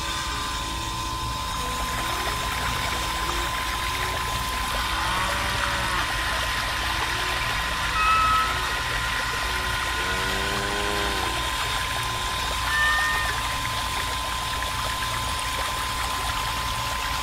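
Miniature electric water pump running steadily with a thin high whine, water pouring from its hose into a small pool. A few short pitched calls come and go over it.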